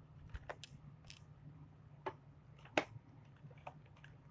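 Faint scattered clicks and crinkles of an action figure's plastic packaging being handled and opened, over a low steady hum.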